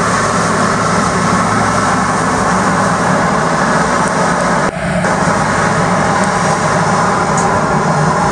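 Scania P94GB sweep-suction truck's diesel engine and sweeper machinery running with a steady loud drone as the truck drives slowly and turns on wet pavement, with a brief dip in level about halfway through.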